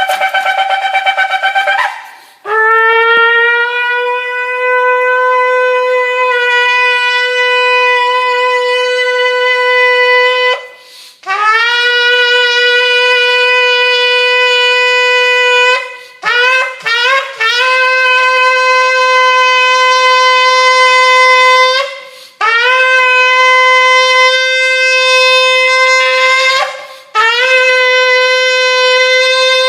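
Shofar being blown. A higher note first, then a series of long blasts on one lower note, each scooping up in pitch at the start, with a few short broken blasts near the middle.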